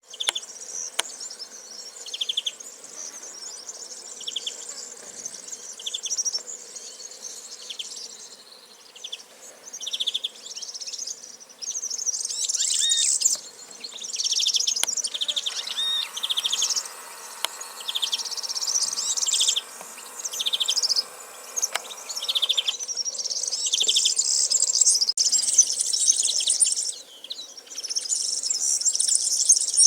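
Wild birds calling and singing, with a high buzzy note repeated about once a second over dense high chattering trills and a few quick falling chirps.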